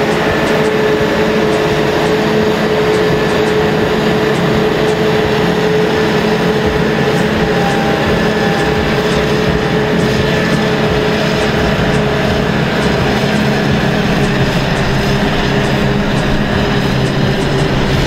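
Claas Jaguar 840 self-propelled forage harvester at work chopping standing maize and blowing the chopped silage into a trailer: a loud, steady machine noise with a constant whining hum over the engine's drone.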